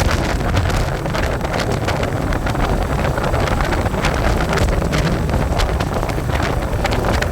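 Royal Enfield Hunter 350's single-cylinder engine and exhaust running while the motorcycle is ridden, with heavy wind noise buffeting the microphone.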